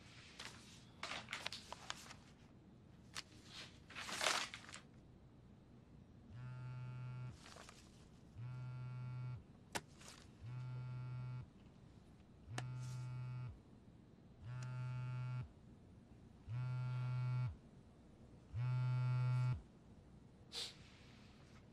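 Mobile phone buzzing on vibrate: seven one-second buzzes about two seconds apart, each a little louder than the last. A few faint clicks and rustles come before the buzzing starts.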